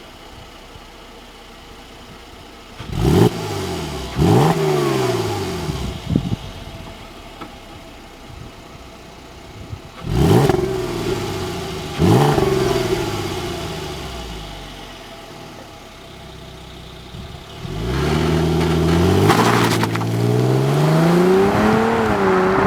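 Mercedes-Benz W204 C 350's 3.5-litre V6 through its stock exhaust: idling, then blipped four times in two pairs, each rev dropping quickly back to idle, and near the end held at higher revs with the pitch wavering up and down.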